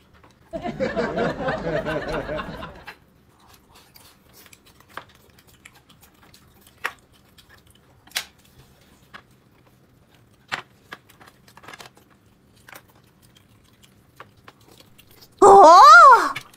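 A person eating: faint scattered chewing and crunching clicks. About half a second in there is a loud, dense burst lasting about two seconds, and near the end a short, loud pitched sound that rises and falls.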